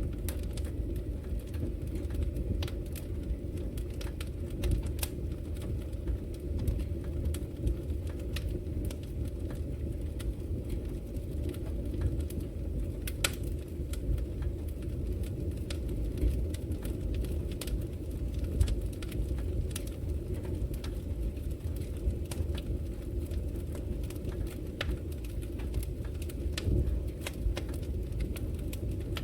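Wood fire burning in a fireplace: a steady low rumble of flame with frequent irregular crackles and pops of burning logs, one sharper pop about 13 seconds in.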